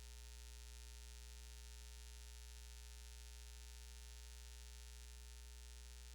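Steady low electrical mains hum with a faint hiss, unchanging throughout; nothing else is heard.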